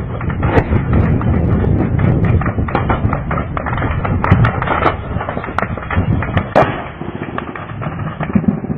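Gunfire and explosions: a dense run of sharp cracks and thuds over a steady low rumble, with a few louder cracks, the loudest about six and a half seconds in.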